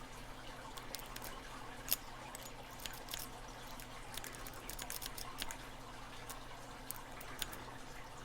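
Irregular light metallic clicks and scrapes of a lock pick working the pin stack of a Master Lock 530 padlock, one sharper click about two seconds in, over a steady low hum.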